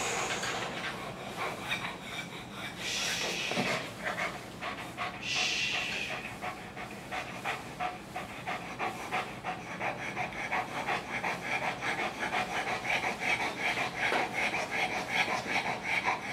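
A dog panting fast and steadily, with two short hissing sounds about three and five seconds in.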